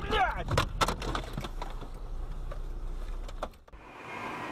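Irregular clicks and rattles over a low rumble, thinning out and stopping abruptly about three and a half seconds in. After a brief dip comes the steady road noise of a car driving.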